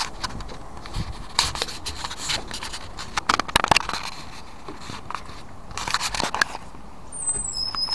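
Handling noise from a carried camera: irregular knocks, scrapes and crackles, in clusters, while it is moved about and carried along a wooden walkway. A few short high-pitched chirps near the end.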